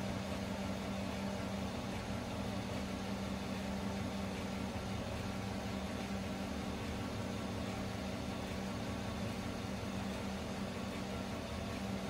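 Chevrolet Silverado pickup's engine idling steadily: an even hum with a strong low drone that does not change.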